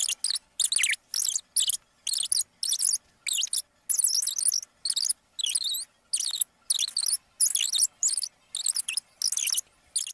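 Minnie Mouse voice talking at double speed: rapid, very high-pitched chatter in short bursts with brief gaps.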